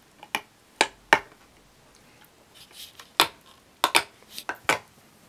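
A husky chewing a green chew stick toy: sharp, irregular clicks of teeth biting on the toy, three in the first second and a half, then a pause, then a quicker run of clicks past the middle.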